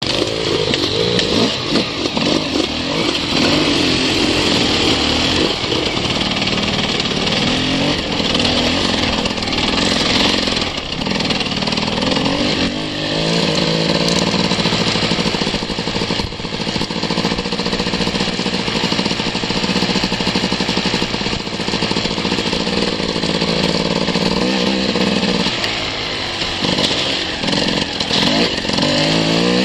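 Enduro dirt bike engine running under way, its pitch rising and falling with the throttle, steadier through the middle stretch, over a constant rushing hiss.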